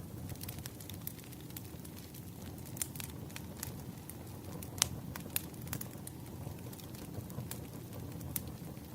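Wood fire burning: a steady low rumble with irregular sharp crackles and pops, the loudest pop about five seconds in.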